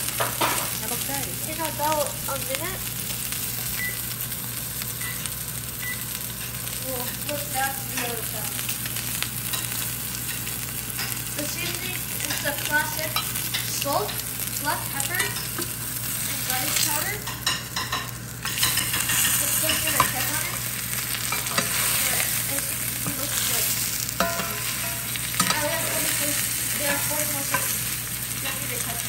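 Swordfish steak frying in oil in a cast-iron skillet: steady sizzling, with frequent small crackles and pops of spitting oil.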